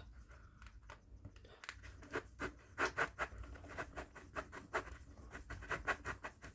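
A knife cutting through a chocolate bar on a board: from about a second and a half in, a run of short, faint cutting strokes, several a second.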